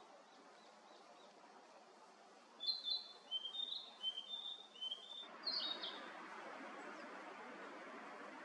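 A songbird sings one short phrase of clear whistled notes, starting a few seconds in. The notes step downward in pitch and end with a couple of higher notes. Under it runs a steady outdoor hiss that gets louder about five seconds in.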